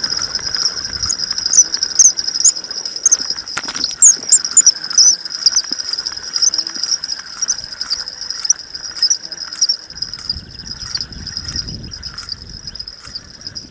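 Steady, high insect trilling, with short bird chirps over it in the first half and a faint rustle near the end.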